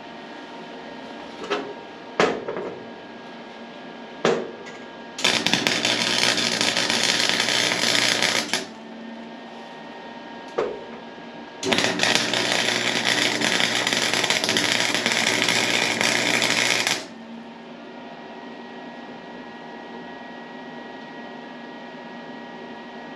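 Electric arc welding steel tube: two steady crackling arcs, the first about three and a half seconds and the second about five seconds long, tacking extension pieces onto a go-kart frame. A few sharp clicks come before them.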